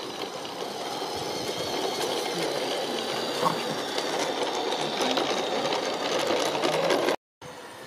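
Garden-scale model train running past on its track, a steady rapid mechanical clatter of wheels and running gear that grows a little louder as it goes by, then stops abruptly near the end.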